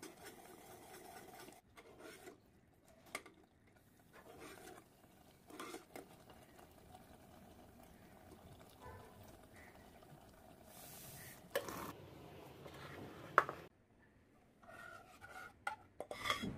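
Metal spoon stirring and scraping in a cooking pan, with scattered clinks and a couple of sharp knocks in the second half.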